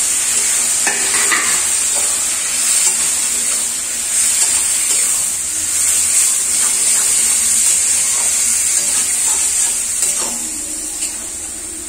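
Boiled macaroni being stirred into frying vegetables and sauce in a metal kadhai over a gas flame: a steady sizzling hiss with the scattered scrape and clink of the spatula against the pan.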